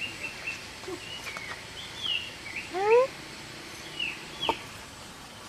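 Asian bull elephant giving a short, rising squeak about three seconds in, the loudest sound here, over birds chirping in quick high falling notes. A sharp click follows about a second and a half later.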